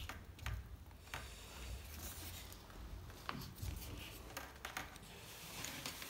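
Faint handling sounds: scattered light clicks and soft rubbing of plastic as the hands adjust the homemade plastic-bottle vacuum cleaner and set it down on the table. Its motor is not running.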